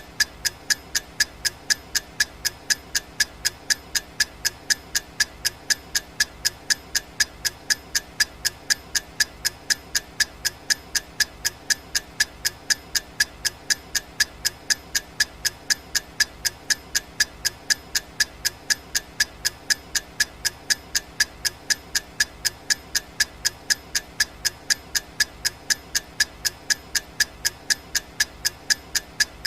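Clock ticking sound, a steady sharp tick repeating at an even pace of about three a second.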